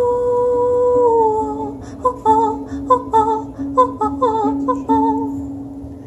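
A woman humming a wordless melody over a strummed ukulele: one long held note that slides down about a second in, then a run of shorter notes.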